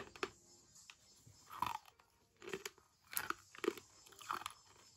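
A person chewing hard toffee peanuts: irregular crisp crunches.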